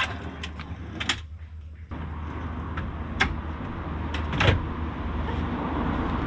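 Scattered knocks and clicks of a plywood drawer unit being slid and set into place in a car's boot, the loudest about a second in, about three seconds in and about four and a half seconds in. A low steady noise runs underneath and gets louder about two seconds in.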